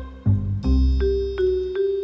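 Background music: a melody of struck, ringing mallet-percussion notes, a few per second, over low bass notes.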